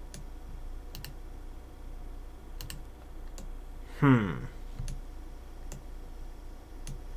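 Computer keyboard keys and mouse buttons clicking, scattered single clicks about once a second, as Blender shortcut keys are pressed. About four seconds in, a short low murmur from the person with a falling pitch is the loudest sound.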